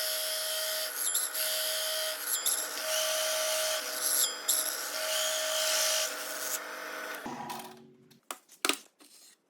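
Power drill running a hole cutter into wood: a steady motor whine with slight shifts every second or so, stopping about seven and a half seconds in, followed by a few sharp knocks.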